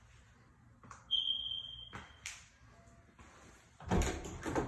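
A single high, steady tone held for about a second and fading out, then a sharp click, and near the end a short, loud burst of knocking and rustling as an interior door is handled.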